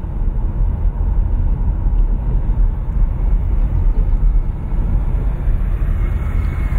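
Steady low rumble of a following car driving on a country road: engine, tyre and wind noise heard from inside the car's cabin.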